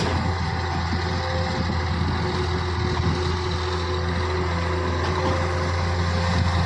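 Diesel engine of a JCB earthmoving machine running steadily, with an even low hum that does not change in pitch or level.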